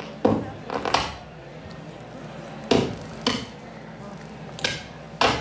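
A series of sharp clattering hits, about six of them at uneven intervals, over a steady low hum.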